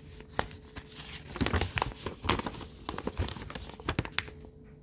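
Paper instruction manual rustling and crinkling as it is handled and unfolded, an irregular run of crackles that dies away near the end.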